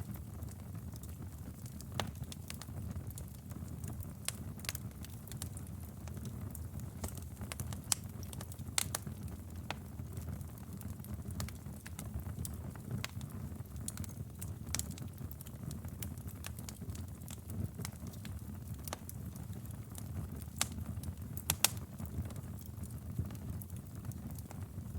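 Wood fire burning in a fireplace: a steady low rumble of the flames with irregular sharp crackles and pops, a few louder snaps standing out.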